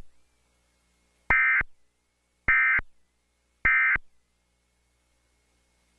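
Emergency Alert System end-of-message signal: three short bursts of SAME digital data tones, about a second apart, marking the end of the alert message.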